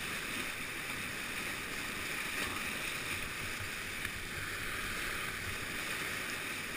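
Steady rush of churning whitewater spilling over a man-made weir.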